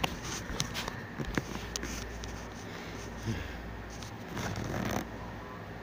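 Rustling and handling noise with scattered sharp clicks as the phone is moved about, over a faint steady hum.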